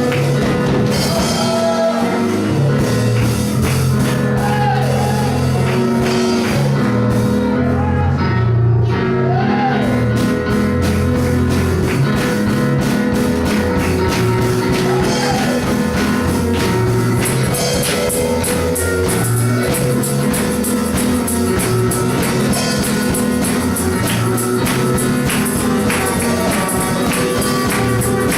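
Live gospel praise music: a band with drums, bass and guitar playing a steady beat, with tambourine and singing.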